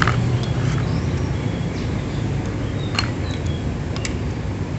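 A steel rod levering against a motorcycle's aluminium cylinder head to pry out a stiff camshaft, giving a few short metallic clicks: at the start, about three seconds in and about four seconds in. Under them runs a steady low background hum.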